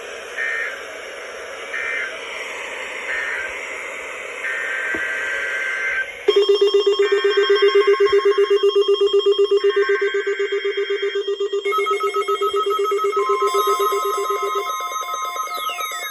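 NOAA Weather Radio over static: three short screeching SAME digital data bursts, the end-of-message code after a finished weekly test. About six seconds in, a loud pulsing low tone starts, and more data bursts and steady alert tones from other weather radio stations overlap it. The 1050 Hz warning alarm tone enters about three-quarters of the way through.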